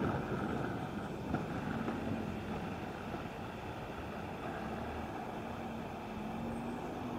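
Steady wind on the microphone with outdoor street noise. The rolling rumble of inline-skate wheels on asphalt fades over the first second or so as the skater moves away, and a faint low hum runs through the second half.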